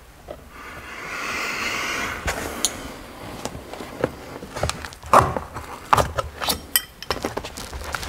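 Hands working with a metal seat-belt mounting plate and tools on fabric-covered sound deadening. A scraping rustle swells and fades about a second in, followed by a series of sharp clicks, clinks and knocks of metal being handled and set down.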